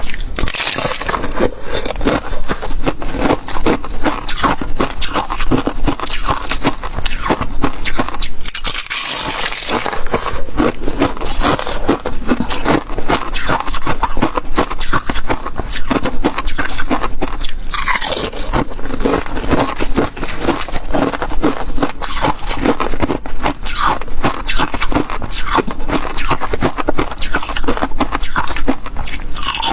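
Close-miked biting and chewing of flaky bottle ice: a dense, continuous run of crisp crunches and crackles, with a brief higher, hissing scrape about nine seconds in and again about eighteen seconds in.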